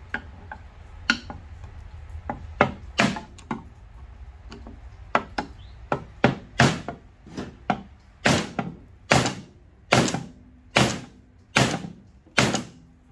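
Claw hammer striking a screwdriver held against an antique drawer lock, driving the paint-stuck lock mechanism down out of the wooden drawer front. A few uneven taps at first, then a steady blow a little more often than once a second.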